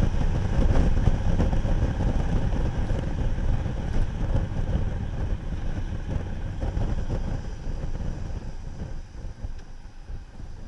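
A motorcycle running on the move, with wind buffeting the microphone, as a steady dense rumble that fades gradually over the last few seconds.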